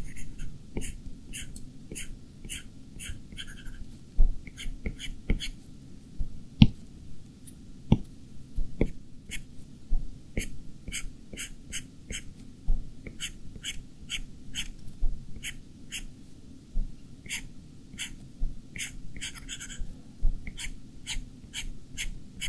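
Stylus nib tapping and stroking on an iPad Pro's glass screen: a run of short, sharp clicks, about two or three a second, with a few brief pauses.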